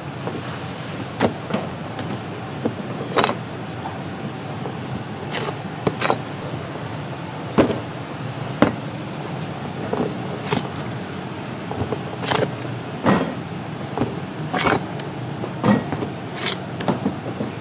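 Kitchen work sounds: sharp, irregular knocks and clatters, roughly one a second, over a steady background hum.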